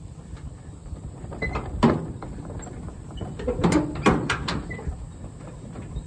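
Vehicle moving slowly across a bumpy hayfield with a load of square hay bales: a steady low rumble with sharp knocks and rattles, one loud one about two seconds in and a quick cluster around four seconds in.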